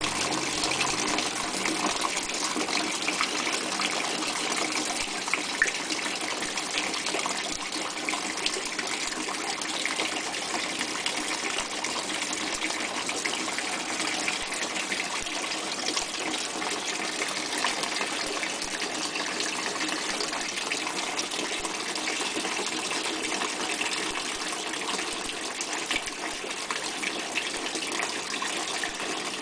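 Steady rush of water spraying from the perforated PVC spray heads inside the net pots of a pump-fed aeroponic grow system, splashing down through the pots.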